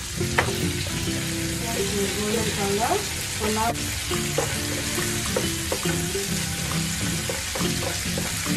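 Crumbled tofu, garlic and dried chili sizzling in hot oil in a non-stick frying pan, with a steady hiss. A wooden spatula stirs and scrapes them around the pan throughout.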